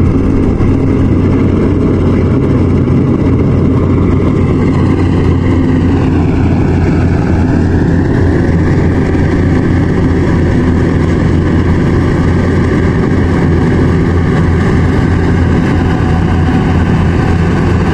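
Yanmar combine harvester's engine running steadily under load while it cuts rice, with a brief dip in pitch about six seconds in that recovers a couple of seconds later.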